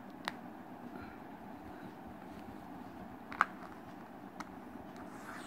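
Three small sharp clicks as hands handle a crocheted amigurumi head fitted with safety eyes, the loudest about three and a half seconds in, over steady low background noise.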